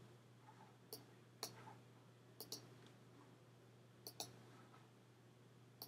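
Faint computer mouse clicks, about seven short sharp clicks, some in quick pairs, over quiet room tone.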